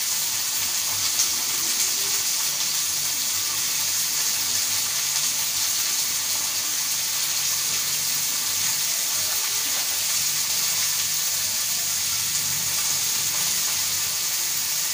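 Mandeli (anchovies) coated in rice flour and semolina shallow-frying in hot oil on a tawa over medium heat: a steady, even sizzle.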